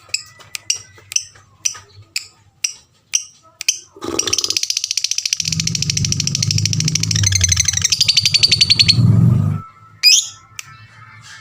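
Lovebird calling: a string of short, sharp chirps about two a second, then, about four seconds in, a long, very rapid high chatter lasting about five seconds that cuts off suddenly, followed by one more chirp. A low drone runs under the chatter.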